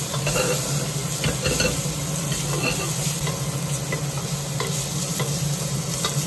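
Chopped onion and ginger sizzling in hot ghee in a pressure cooker, stirred so that the spoon scrapes and clicks against the metal every second or so, over a steady low hum.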